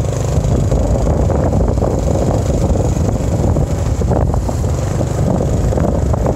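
Steady wind rushing over the microphone of a moving motorbike, mixed with the bike's engine and road noise.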